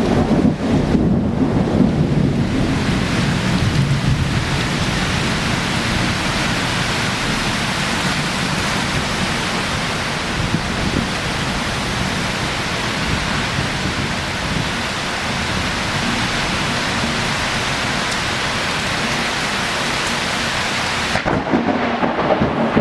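Torrential rain of a sudden summer cloudburst pouring down in a steady, dense hiss, with a heavier low rumble in the first few seconds. Near the end the high hiss drops away abruptly.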